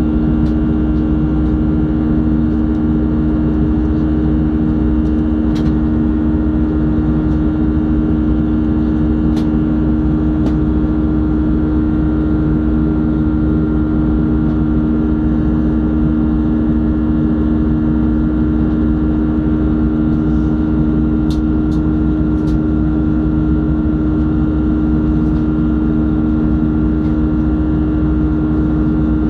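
Steady in-flight cabin drone of an Airbus A320 with CFM56-5A1 turbofan engines, heard from a window seat beside the engine: engine and airflow noise with a constant hum of two low tones and a fainter higher whine. A few faint clicks sound over it.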